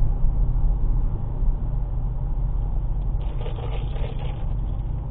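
Low, steady rumble of a car creeping in slow traffic, heard inside the cabin through a dashcam microphone. A short, faint crackle comes in about three seconds in.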